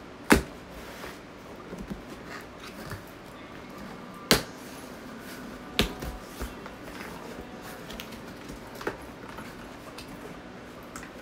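Cardboard boxes being handled: a product box shifted against its shipping carton, giving four sharp knocks, the loudest right at the start and three more spread out, with light rustling between.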